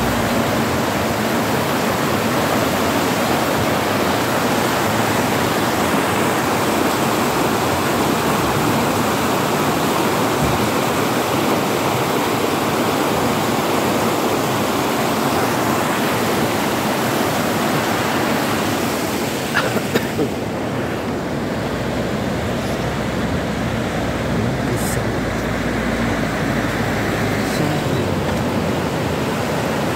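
Fast, rocky mountain river rushing over its rapids: a steady, even rush of white water. A few sharp clicks about two-thirds of the way through, after which the water sounds duller for a time.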